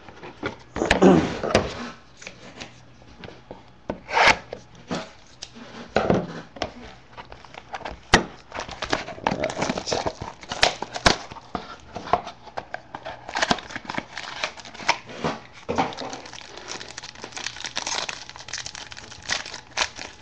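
Trading-card pack wrapper being torn open and crumpled by hand: irregular crinkling and tearing with sharp crackles, sparse at first and denser through the second half.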